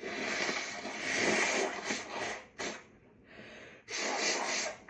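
A woman blowing her nose hard, her nose congested by hay-fever allergy: one long blow of about two and a half seconds, a short blow and a fainter one, then another blow of about a second near the end.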